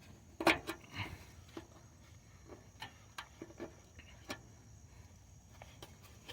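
Scattered small clicks and light knocks, the loudest about half a second in, from the rear oxygen sensor's wire and connector being handled and fed back through a hole in the body.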